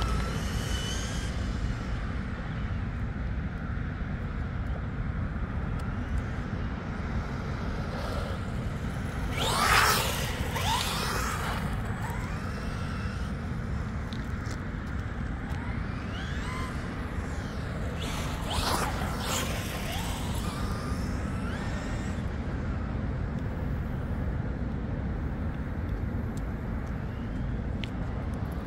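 Traxxas Ford F-150 Raptor R RC truck driving on its stock gearing. Its electric motor whine rises and falls twice, about ten and nineteen seconds in, over a steady low rumble.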